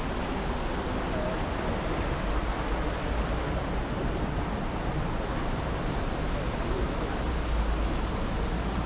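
Steady rushing outdoor noise with a low rumble and no distinct events, with faint voices of passers-by in the background.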